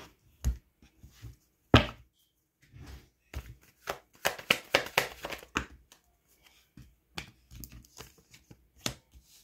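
A deck of tarot cards being shuffled by hand: a run of quick snapping and slapping card sounds, thickest in the middle, with one sharper knock about two seconds in.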